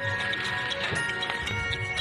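Background music with held tones and a steady light tick.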